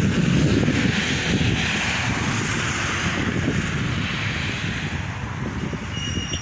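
Wind buffeting the microphone: a loud, uneven, gusting rumble over a steady rushing hiss. A thin, steady high tone comes in near the end.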